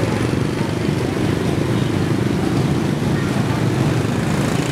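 Steady street traffic noise with motorbike engines running close by.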